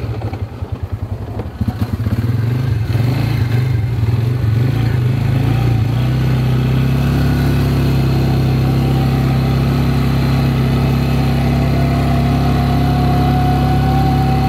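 Small ATV's engine being ridden. It pulses unevenly for the first couple of seconds, then runs steadily, with a thin whine that climbs slightly near the end.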